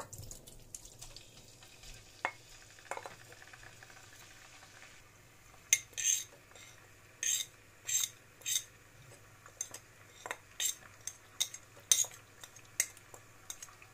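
A metal spoon scraping and tapping on a ceramic plate as ground spices are scooped off it onto shrimp in a pot: a run of short, sharp scrapes and clinks from about five seconds in. Before that come a few soft knocks as raw shrimp are pushed from a bowl into the pot with a wooden spoon.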